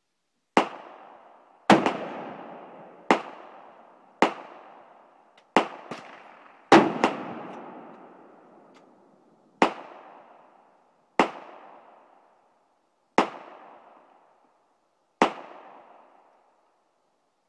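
Gunshots on an outdoor range: about ten sharp cracks spaced one to three seconds apart, each trailing off in a long echo, with a few fainter shots mixed in.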